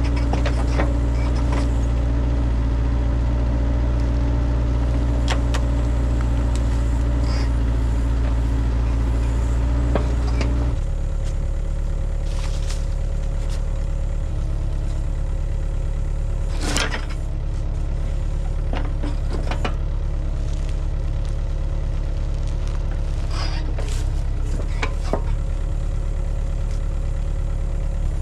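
Engine running steadily at idle, dropping to a lower, quieter note about 11 seconds in, with a few scattered sharp clicks and clanks over it.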